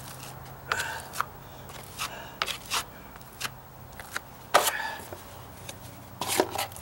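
Metal putty knife scraping and clicking as patching compound is spread over a deck stair tread and scooped from a mud pan: a series of short, uneven scrapes and taps, the loudest about four and a half seconds in.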